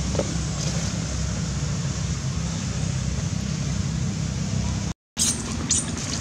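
Wind buffeting the camera microphone: a steady, uneven low rumble. The sound drops out for a moment about five seconds in, and a few short crackles follow.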